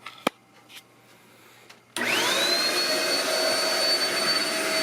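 Shark bagless stick vacuum switched on about two seconds in after a few small clicks. Its motor whine rises quickly to a steady high pitch over a loud steady rush of air, and it runs at a single fixed speed.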